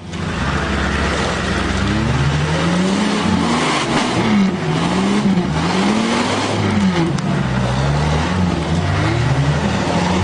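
4x4 engine revved hard over and over, its pitch rising and falling roughly once a second, over a steady rushing noise: a vehicle stuck in a deep mud hole trying to drive itself out.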